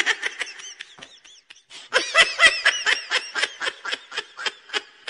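Snickering laughter sound effect: a quick run of short, repeated laughing pulses, with a brief burst at the start and a longer run from about two seconds in.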